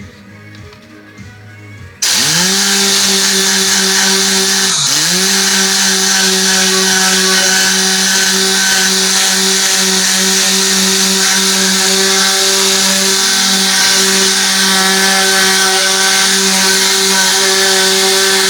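An electric motor on car-cleaning equipment switches on about two seconds in. It spins up quickly to a loud, steady hum with a hiss over it, bogs down briefly and recovers a few seconds later, then runs evenly until it winds down at the very end.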